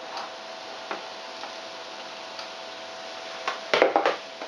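A few light clicks of a plastic spatula scraping the last chopped mushrooms off a plastic cutting board into a frying pan, then a quick cluster of louder knocks and clatters about three and a half seconds in as the board and utensils are handled.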